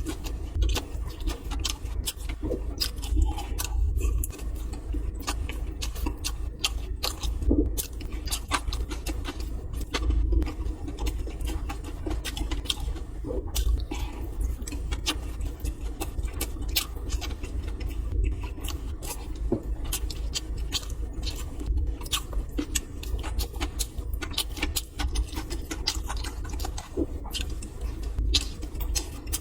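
Close-miked eating sounds: a person chewing steamed buns, with a dense run of small wet mouth clicks over a steady low hum.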